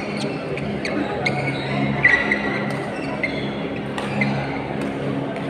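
Badminton hall ambience: irregular sharp racket-on-shuttlecock hits and brief shoe squeaks on the court floor, over a steady low hum.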